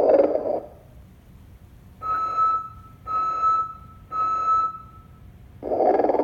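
Motionette animated electronic sleeping Santa's recorded snoring and whistling: a rasping snore ends just after the start, then come three short, steady, high whistles about a second apart, and a new snore begins near the end.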